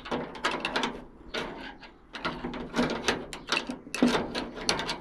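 Hammer tapping at a small steel padlock: a run of quick, irregular metal knocks and clicks in clusters, as the lock starts to give.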